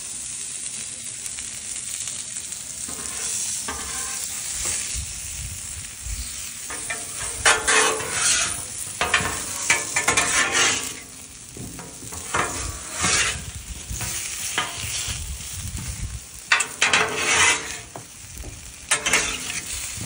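Potato rounds sizzling on the steel top of a Blackstone flat-top griddle, with a steady hiss. From about seven seconds in, a metal spatula scrapes across the steel in irregular strokes as the potatoes are turned.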